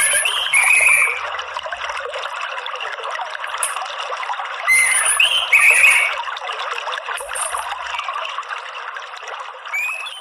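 Water trickling steadily, with orange-headed thrush calls over it: short rising chirps and warbled notes at the start, again about five seconds in, and a single rising note near the end.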